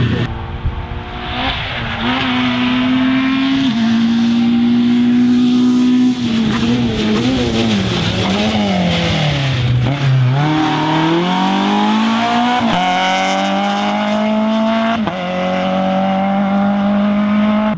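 Rally car engine running hard: its pitch holds steady, dips and wavers, then climbs again, with several sudden steps in pitch like gear changes.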